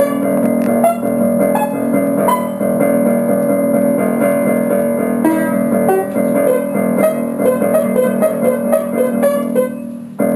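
Background music on piano or electric piano, with sustained chords under a run of single notes. It fades out near the end.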